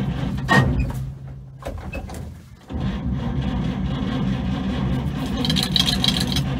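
Starter cranking a 1954 Chevrolet one-ton truck's straight-six engine, which turns over but does not catch, with a sharp click about half a second in. The cranking stops about a second in and starts again near three seconds. The engine fails to fire because the ignition has no spark.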